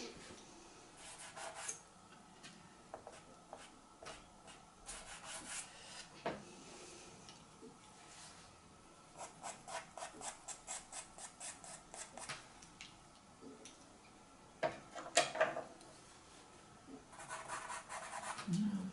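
Pastel pencil rubbing and scratching across PastelMat card in short strokes that come in bursts, with a run of quick, even strokes about four a second in the middle.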